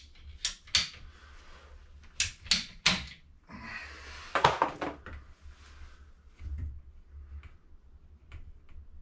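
Hand tool clicking on PVC drain pipe: sharp plastic clicks spaced about a third of a second apart, in line with a ratcheting PVC pipe cutter squeezing through the pipe. A louder clattering rustle follows about four seconds in, then a few faint ticks.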